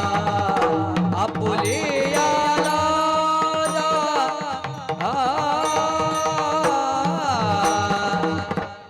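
Marathi Varkari kirtan music: a voice singing a drawn-out, ornamented melody line without clear words, over a steady rhythm of mridang drum strokes.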